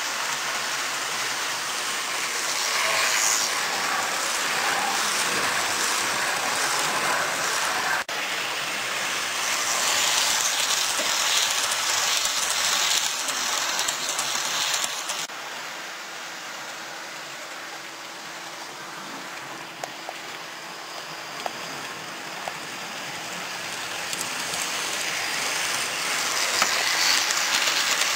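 Model trains running on a layout: a steady whirring rattle of small wheels and motors on the rails, dropping quieter about halfway through and building up again near the end.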